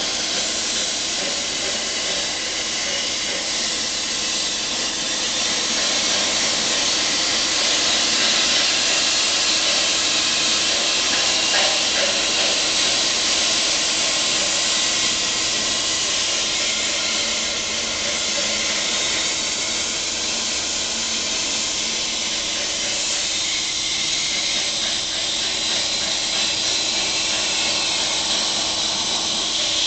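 CNC plasma cutter's arc cutting through metal plate: a continuous steady hiss, with faint steady tones underneath.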